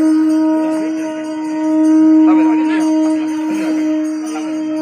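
A horn blown in one long, steady note that starts abruptly and holds without a break, swelling slightly about two seconds in.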